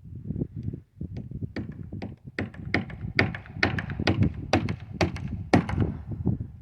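A rapid, irregular series of knocks and thuds, a few each second, growing sharper and louder after the first second or so.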